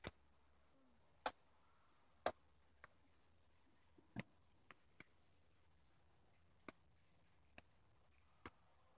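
Near silence broken by about ten short, sharp clicks at irregular intervals.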